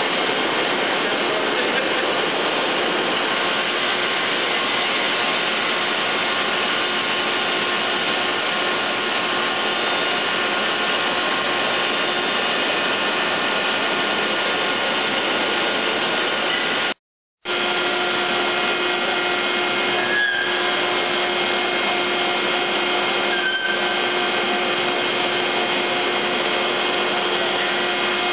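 Steady machinery whir with faint steady tones from a large Niles vertical boring mill running. The sound breaks off for a split second a little past the middle, then resumes with a steady low hum added.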